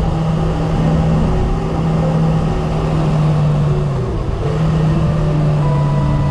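Motorcycle engine running steadily while riding at speed, with wind noise rushing over the microphone. The engine note dips briefly about four seconds in, then picks up again.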